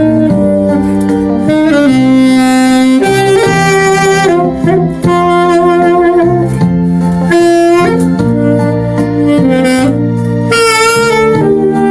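Alto saxophone with a dry, unprocessed tone playing a Korean pop song melody of held and moving notes over a backing track of sustained chords.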